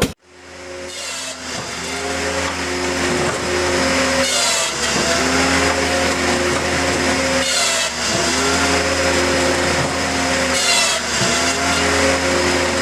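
A wood-cutting machine running steadily with a hum and a loud hiss. A short falling whistle comes about every three seconds.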